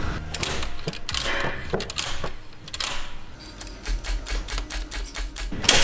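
Metal-on-metal clicking and knocking from an injector puller being worked on a rust-seized diesel injector in a BMW M57 engine. The clicks come scattered at first, then in a fast run from about four seconds in, ending in a louder knock.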